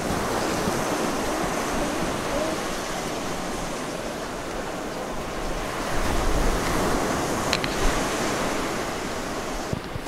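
Ocean surf washing against a rocky islet, a steady rushing wash mixed with wind on the microphone. The surge swells louder and deeper about six seconds in.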